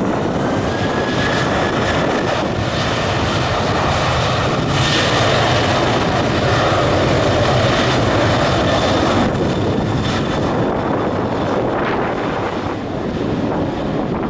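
A loud, steady rushing drone.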